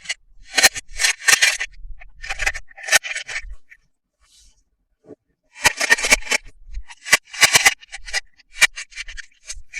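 Toy packaging being handled and opened by hand: short bursts of scraping and rustling with sharp clicks, and a pause of about two seconds midway.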